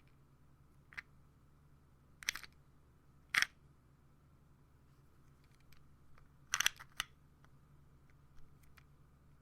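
Plastic pill bottle being handled, giving a few short, sharp plastic clicks spread apart. The loudest come a little over two and three seconds in, with a close group near the end.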